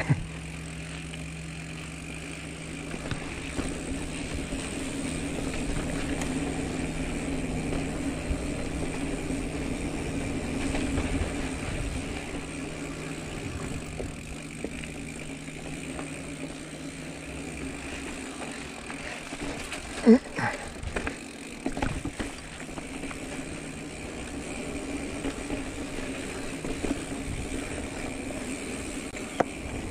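2022 Giant Trance X29 mountain bike rolling fast down a dry dirt trail: a steady rush of tyre and riding noise, with a sharp knock about twenty seconds in and a few smaller knocks after it.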